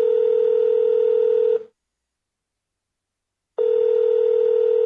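Telephone ringback tone, the ringing a caller hears on the line: a steady mid-pitched tone that stops about a second and a half in and starts again about two seconds later, running on to the end.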